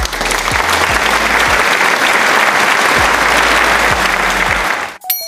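Applause from a crowd that starts suddenly and cuts off about five seconds in, with a few deep bass thuds of background music beneath it.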